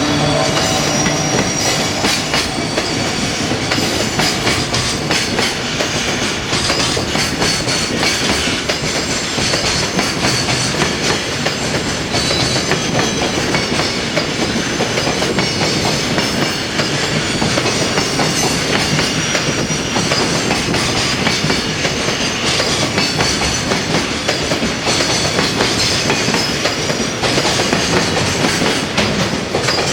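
Freight train behind an EF210 electric locomotive going past: a long run of wagons with a steady, continuous clickety-clack of wheels over the rail joints.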